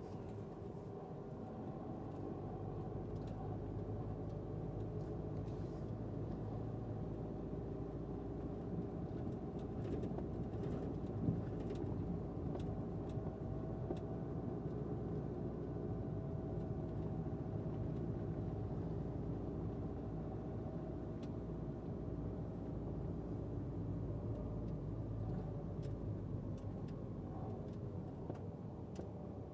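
A vehicle driving slowly along a gravel dirt track: a steady engine hum under a low rumble of tyres on gravel, with scattered small stone clicks. There is a single sharp knock about eleven seconds in.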